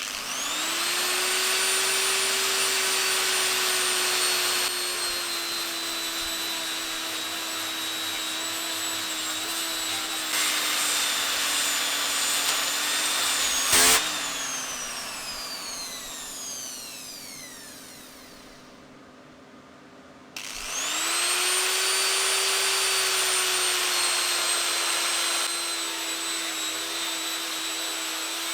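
Angle grinder fitted with a paper cutting disc, switched on and spinning up to a steady high whine. About halfway through there is one sharp crack, then the motor winds down to near quiet before being switched on again and spinning back up near the end.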